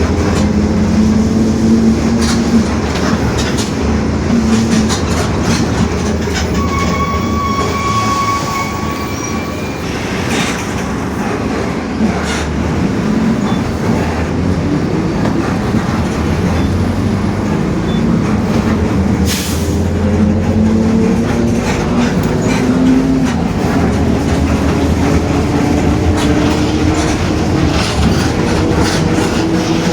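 Mercedes-Benz OF-1721 BlueTec 5 bus driving, its diesel engine rising and falling in pitch through several gear changes, with the differential howling and the body rattling. A couple of sharp knocks come through, one about ten seconds in and another near twenty.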